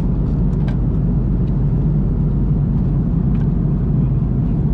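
Steady low drone of an Airbus A330-300 cabin in flight, the engines and airflow. A few faint light clicks, around half a second in and again past three seconds, from handling the meal packets on the tray.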